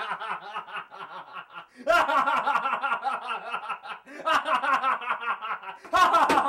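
A man laughing maniacally, a drawn-out villain's laugh in three or four long bursts.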